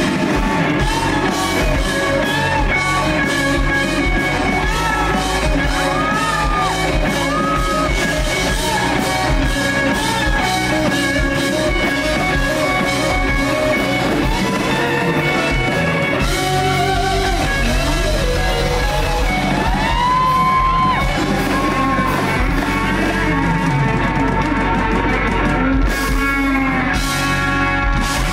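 Live rock band playing loud: electric guitars with bending lead notes over a drum kit.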